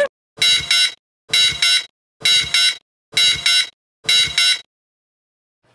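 An iPhone ringing with an incoming call: an electronic ringtone of quick double pulses, repeating about once a second five times, then stopping.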